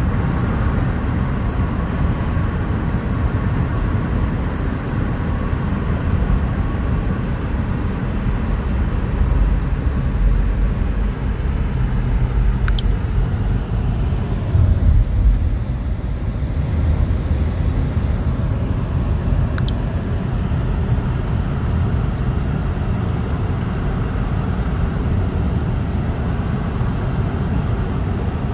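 Road noise inside a moving car's cabin: a steady low rumble from tyres and engine at cruising speed.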